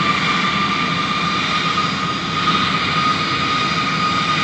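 Jet airliner's engines running as it taxis: a steady rushing hum with a thin, high whine held over it.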